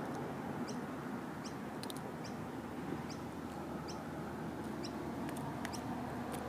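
A small bird chirping over and over, a short high chirp about every half second to second, over a steady low background hum.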